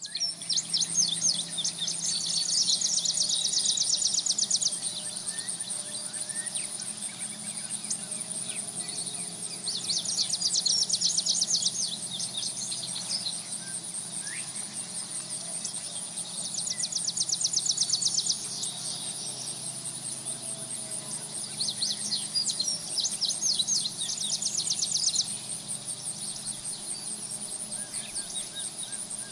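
Meadow ambience: a steady high insect drone, broken by repeated bursts of rapid chirping, each two to four seconds long, about every six seconds.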